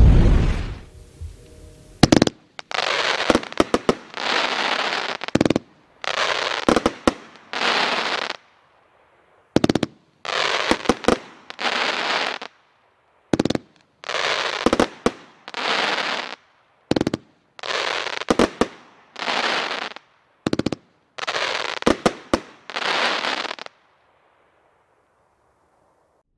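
A 500-gram consumer firework cake (Cutting Edge 'Final Cut') firing a long string of shots: each sharp launch is followed by a noisy, crackling burst lasting about a second, with the shots coming in quick groups. The barrage stops about two seconds before the end.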